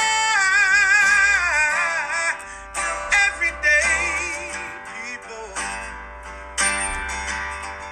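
Music: a singing voice with wavering vibrato over guitar, fading out near the end.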